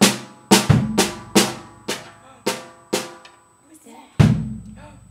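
A toddler hitting a Yamaha drum kit with drumsticks: uneven single strokes about two a second, each ringing out. After a short pause comes one heavier, deeper hit about four seconds in.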